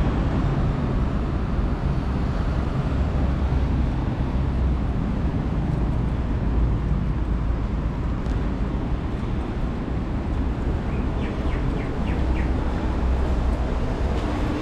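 Steady low outdoor rumble of city background noise, with a few faint short clicks a few seconds before the end.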